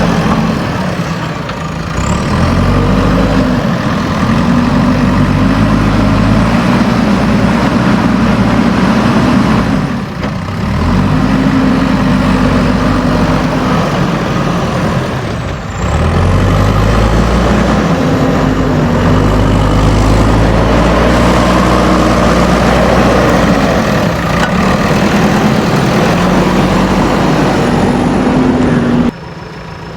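JCB backhoe loader's diesel engine working under load, its pitch rising and falling as the revs change. It eases off briefly twice. Just before the end the sound drops suddenly to a much quieter level.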